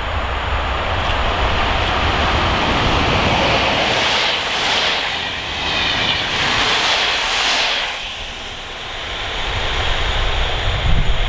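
PKP Intercity EP07 electric locomotive and its passenger coaches passing by, the rushing rail noise building as the train draws level and dropping off about eight seconds in as the last coach goes by.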